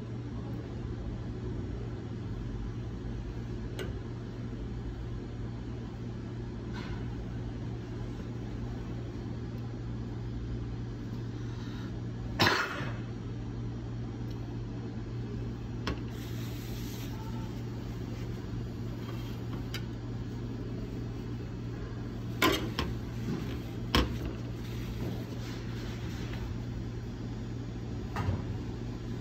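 Steady low machine hum, with a few sharp knocks of a metal spoon against a porcelain plate. The loudest knock comes about halfway through, and two more come close together later.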